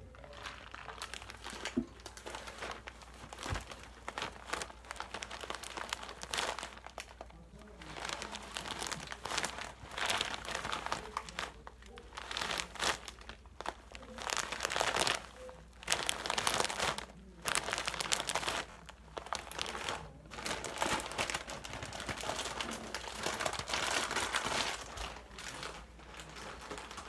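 Hands crinkling and rustling something right next to the microphone, in irregular bursts with short pauses between them.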